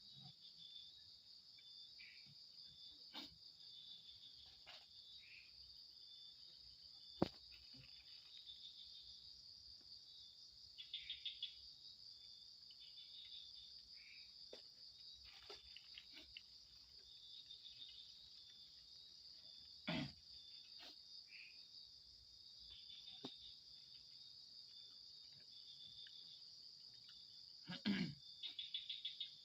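Night insect chorus: a steady high-pitched trill of crickets, with other insects calling in short pulsed chirps. There are a few sharp knocks, the loudest about 7 s, 20 s and 28 s in.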